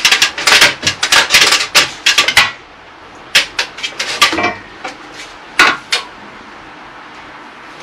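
Hand tools clinking and scraping against the steel beam and brickwork: a rapid run of clicks and scrapes for about two and a half seconds, then a few separate sharp knocks.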